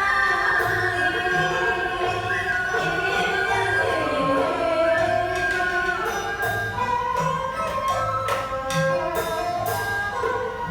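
Traditional Vietnamese water-puppet theatre music: a voice singing over pitched instruments, with sharp percussion strokes coming in more often in the second half.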